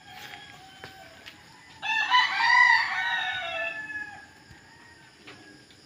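Rooster crowing: one long cock-a-doodle-doo starting about two seconds in and lasting about two seconds, with a fainter call near the start.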